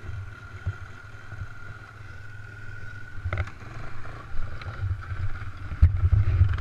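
Suzuki DR200's single-cylinder four-stroke engine running low, with a steady high whine over its rumble that stops a little over three seconds in. After that come a few sharp knocks and bursts of wind buffeting on the microphone.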